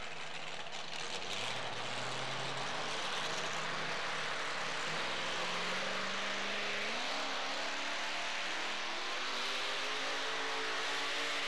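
Modified two-wheel-drive pulling truck's engine revving at the start of a pull, its pitch climbing between about five and seven seconds in and then holding high.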